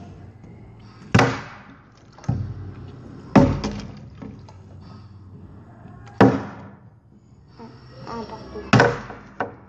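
Plastic water bottle being flipped and landing on a hard surface again and again: five sharp thuds spaced one to three seconds apart, with a smaller knock near the end.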